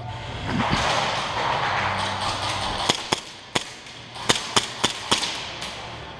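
An airsoft pistol firing single shots: about seven sharp cracks, irregularly spaced, in the second half. They follow a couple of seconds of rushing noise.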